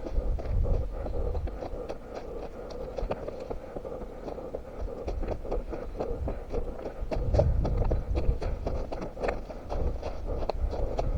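A runner's footsteps heard from a head-mounted camera: a quick, steady rhythm of thuds and scuffs, over a low rumble that swells about two-thirds of the way through.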